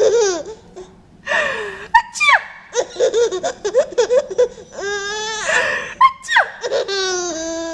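A ten-month-old baby laughing hard: high-pitched giggles and squealing belly laughs in repeated bursts, with a short pause for breath about a second in.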